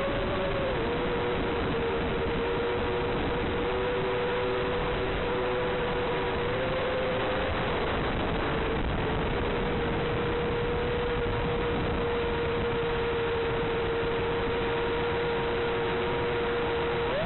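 Steady hiss with a constant, nearly unchanging whine underneath, the audio channel of an FPV quadcopter's analog video link.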